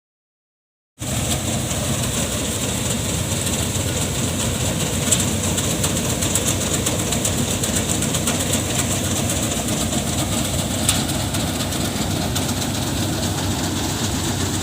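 Paddy threshing machine running steadily: a loud, dense mechanical clatter that cuts in suddenly about a second in after silence, with a couple of sharp clicks along the way.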